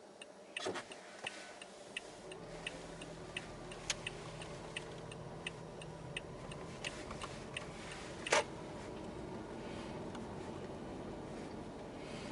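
Toyota Aqua's turn-signal indicator ticking, about two ticks a second, then stopping as the signal is cancelled. A low steady hum comes in about two seconds in, and there is a single louder knock past the middle.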